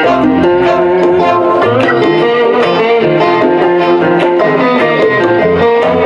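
Live band playing an instrumental passage: electric and acoustic guitars with bass and a saxophone over a steady beat.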